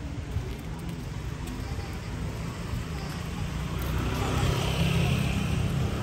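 Road traffic, with a motor vehicle's engine and tyres growing louder about four seconds in.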